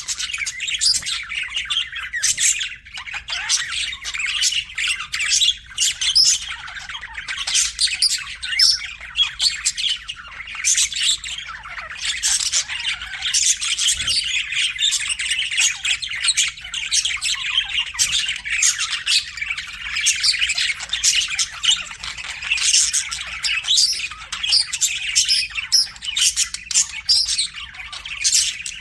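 A flock of budgerigars chattering: a dense, unbroken stream of short chirps, warbles and squawks from several birds at once.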